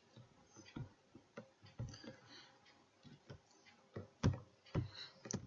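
Scattered clicks of a computer mouse and keyboard keys, a dozen or so short separate clicks, a few sharper ones after about four seconds.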